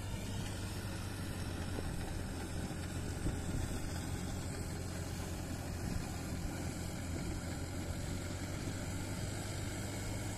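Sonalika DI-47 RX tractor's diesel engine running steadily under load as it drives a 6-foot rotavator through wet paddy soil.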